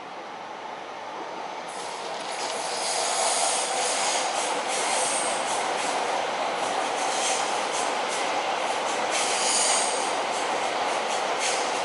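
Train running on the tracks below, growing louder over the first few seconds and then running steadily. High-pitched wheel squeals come and go several times.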